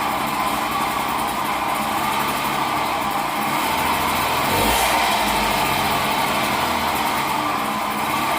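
Two-stroke moped engine running with a washer fitted in the exhaust outlet, giving a sharper, crackly exhaust note, with a short thump about halfway through.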